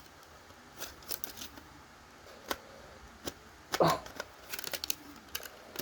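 Scattered plastic clicks and light rattles of a smoke alarm being handled and pushed onto its mounting bracket, with a quick run of clicks near the end. The alarm will not seat because its clip is broken.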